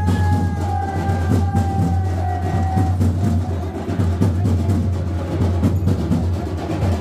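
Drums of a festival palanquin procession beating steadily over a deep boom. A held pitched note sounds above them for the first three seconds, sliding slightly downward.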